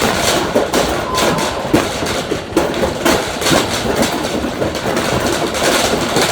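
Shopping cart being pushed, its wheels and metal frame making a loud, continuous rattling clatter of rapid irregular clicks.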